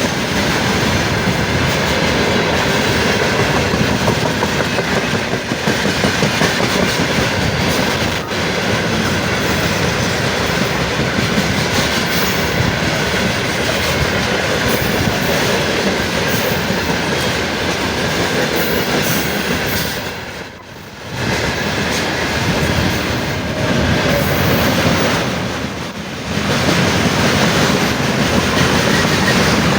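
A train passing close by, its wheels clattering steadily over the rail joints, with two brief drops in loudness about two-thirds of the way through.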